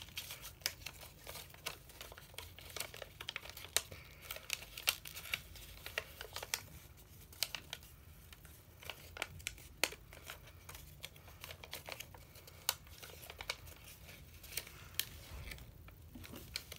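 Sheet of origami paper being folded and creased by hand, with irregular crinkling and sharp little paper crackles as the flaps are lifted and pressed flat.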